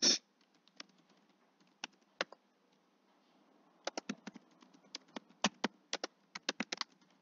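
Keystrokes on a computer keyboard: a few scattered taps, then a quick run of typing from about four seconds in.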